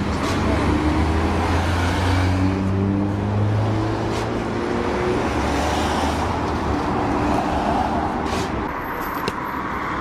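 A truck engine idling close by with a steady low hum, while car traffic passes on the road. A few short sharp clicks sound over it.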